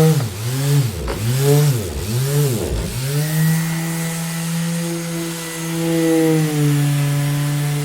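Electric orbital sander running with a steady motor hum. Its pitch dips sharply and recovers about three times in the first three seconds, then holds steady.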